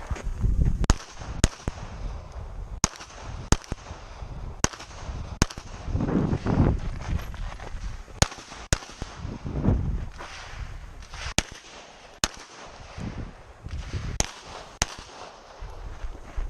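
Glock 22 .40 S&W pistol fired in quick pairs, about a dozen shots in all with a second or several between pairs, during a range course of fire.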